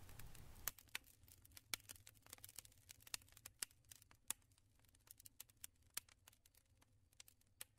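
Near silence with faint crackling of a fireplace fire: irregular sharp pops, some louder than others, growing sparser toward the end.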